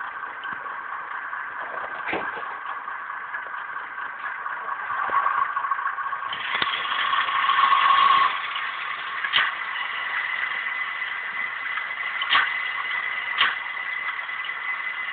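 Sound decoder in a Class 101 diesel multiple unit model playing its recorded diesel engine sound through the model's small speaker: a steady idle that swells louder about six seconds in, then settles back, with a few sharp clicks along the way.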